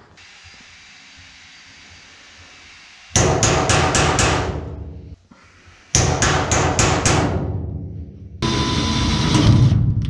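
A mallet strikes a steel cabinet's hinge in two quick runs of several sharp taps, about three and six seconds in, each tap ringing briefly. Near the end a cordless drill starts up and runs, driving a hinge screw into the cabinet.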